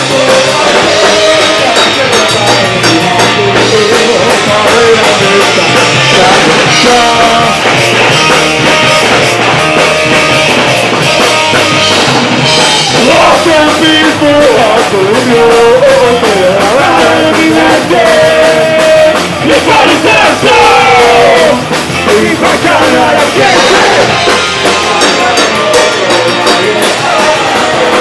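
Punk rock band playing live, loud and fast: electric guitar, a violin-shaped electric bass and a drum kit, with singing over them.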